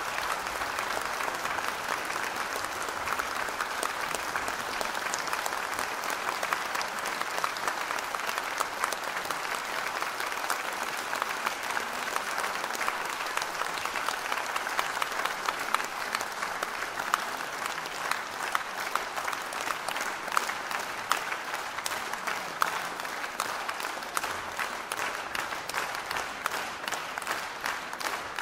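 Concert audience applauding, a dense steady clapping in which single claps stand out more clearly in the second half.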